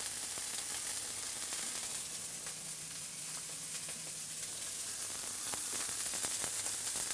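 Filet mignon steaks searing in oil in a stainless steel frying pan, sizzling steadily with scattered crackles and pops, a few stronger pops in the second half. This is the first-side sear, where the crust forms.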